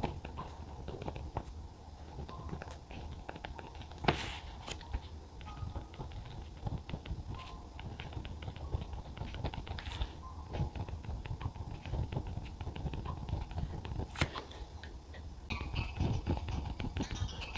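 Pen writing by hand on notebook paper: a run of small scratches and ticks from the strokes, with two sharper knocks, about four seconds in and again near fourteen seconds.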